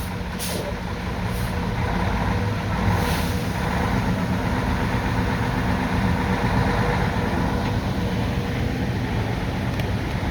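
Heavy truck diesel engine running steadily, a little louder about two seconds in, with a few short hisses in the first three seconds.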